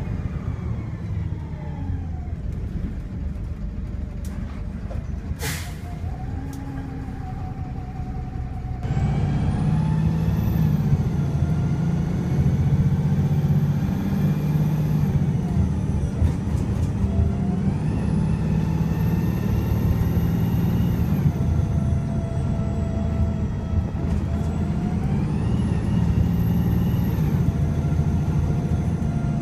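VDL SB200 bus engine running, with a short hiss of air about five seconds in. At about nine seconds it goes louder under hard acceleration, and a whine rises and falls three times as it pulls up through the gears. The engine is misfiring, which gives it a rough, uneven note.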